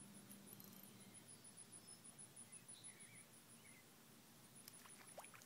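Faint insect chirping, a high rapid pulse of about five chirps a second, with a few faint bird calls and some soft clicks near the end.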